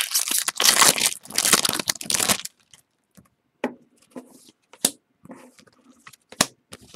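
A trading card pack's wrapper being torn open and crinkled for about two and a half seconds, followed by faint scattered taps and rustles as the cards are handled.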